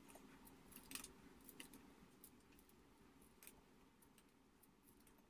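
Faint, scattered clicks of a kitchen knife slicing shallots held in the hand over a glass plate, the firmest click about a second in; otherwise near silence.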